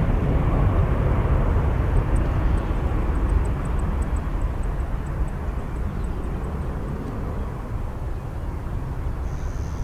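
Airbus A330 airliner's twin jet engines at climb power after takeoff, a deep steady rumble that slowly fades as the plane climbs away.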